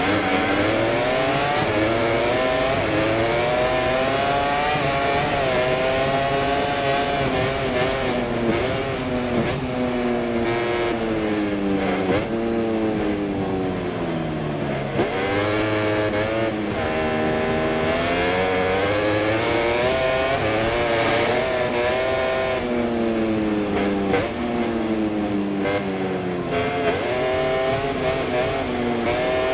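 Onboard sound of a MotoGP racing motorcycle engine at full race pace. It revs hard up through the gears and falls in pitch under braking and downshifts several times, with sharp drops in revs between rising sweeps.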